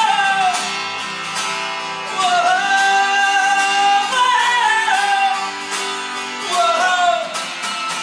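Male voice singing long held phrases over a strummed acoustic guitar. The voice stops about seven seconds in and the guitar carries on alone.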